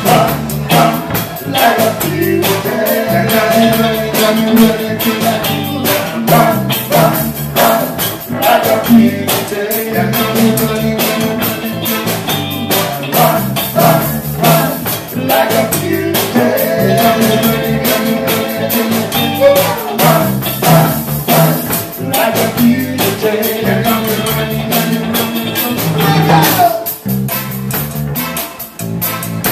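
Live reggae band playing: keyboards, guitar, bass, drums and percussion keep a steady rhythmic groove, with a man singing lead at the microphone.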